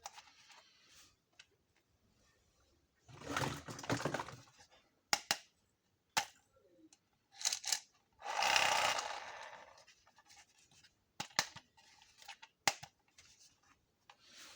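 Hands unboxing a plastic toy kitchen set: sharp clicks and taps of small plastic pieces, with two longer tearing sounds of packaging, about three seconds in and again about eight seconds in.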